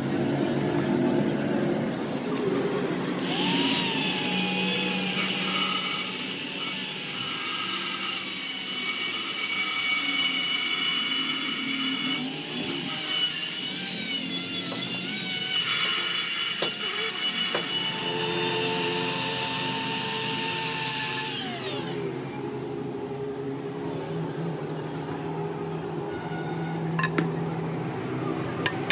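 A power tool working metal: a loud, steady high-pitched hiss with a wavering whine that starts about three seconds in and stops a few seconds before the end, over lower machine noise.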